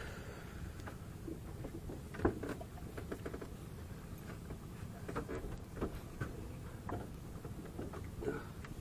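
Small clicks, taps and rustles of hands handling fishing line and a hook close to the microphone, with a sharper knock about two seconds in, over a steady low rumble.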